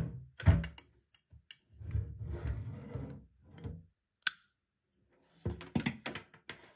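Rubbing and bumping handling noises, with one short, sharp click about four seconds in as the warmer's inline cord switch is pressed to turn off its LED lights, then more handling noise.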